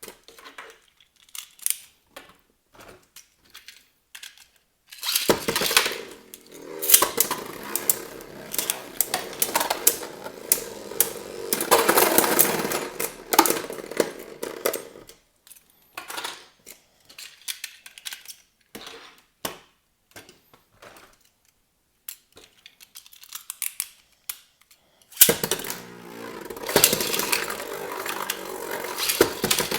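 Beyblade Burst spinning tops spinning and clashing in a plastic stadium, a dense rattling clatter that starts suddenly about five seconds in and runs for about ten seconds, then starts again near the end. In between come scattered separate clicks and taps.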